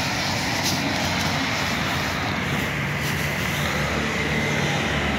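Steady drone of a vehicle engine running nearby, an even low hum over street noise.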